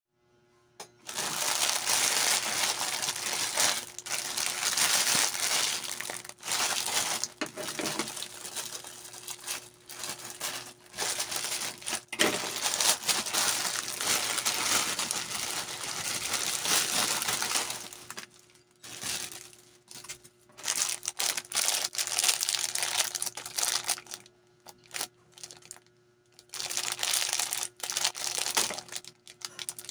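Clear plastic snack wrappers crinkling as a big bag of cracker packs is opened and the small packets are pulled out and handled. Nearly continuous at first, then in shorter bursts with pauses over the last third.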